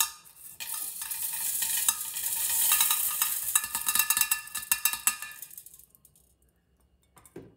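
Small filter granules shaken from a metal mesh strainer into a glass water-filter jar, raining onto wet mineral stones as a dense hiss of tiny clicks that dies away after about five and a half seconds. A single soft knock follows near the end.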